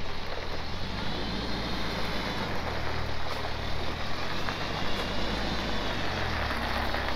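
Forklift engine running as the forklift drives, a steady low hum whose pitch shifts about two and a half seconds in and again near the end.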